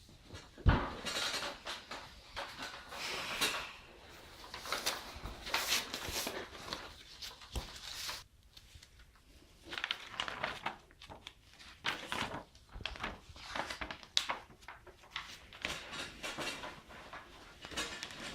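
Irregular rustling, scraping and knocking of objects being handled, with a sharp knock under a second in as the loudest sound.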